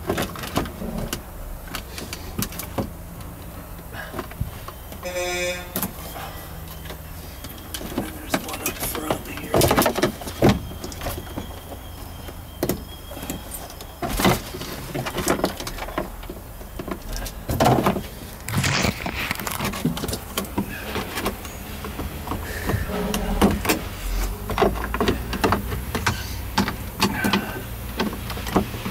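Irregular clicks, knocks and rattles of plastic and metal as a Mercedes W115's gear selector and console wiring are worked loose by hand, with a short squeak about five seconds in.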